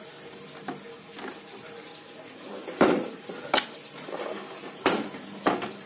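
A Mackie mixer being turned over and set down on a wooden workbench: a series of knocks and clicks, the loudest in the second half, over a steady hiss.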